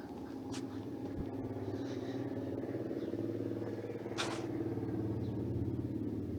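Steady low mechanical hum, like a motor running, with a single sharp click about four seconds in.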